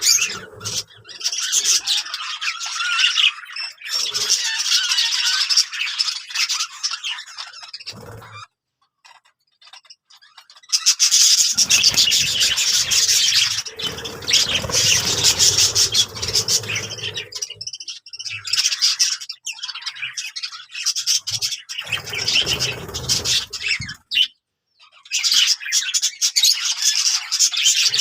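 Budgerigars chattering and warbling in dense, busy bouts with squawks mixed in. The chatter falls silent for about two seconds around a third of the way in, then pauses briefly again near the end.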